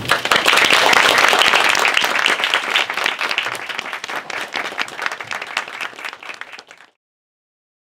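Audience applauding, many hands clapping at once, loudest in the first couple of seconds and then thinning out until the sound cuts off suddenly near the end.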